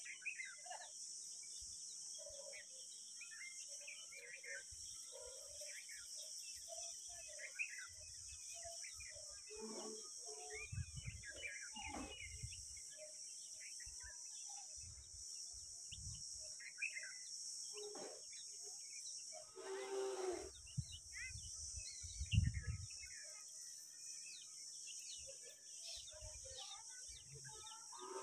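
Outdoor nest ambience: small birds chirping over a steady high hiss, with scattered low bumps on the microphone as a Eurasian collared dove moves against the camera at its nest, the loudest about 22 s in. A short low call sounds about 20 s in.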